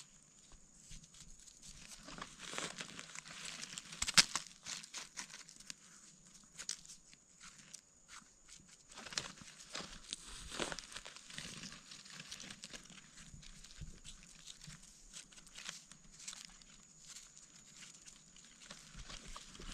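Knife blade scraping and digging into soil and dry leaf litter in short, irregular scrapes and crunches, with one sharp click about four seconds in. A faint steady high-pitched hum sits underneath.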